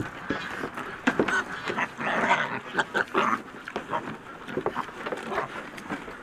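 Several pigs eating from a trough: noisy chewing and snuffling, with many short crunches and breathy sniffs, loudest about two to three seconds in.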